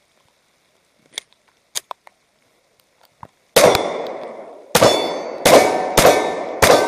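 Glock 26 9 mm subcompact pistol fired five times in an uneven string, starting about three and a half seconds in, each shot trailing off in a long ringing decay. A few faint clicks come before the first shot.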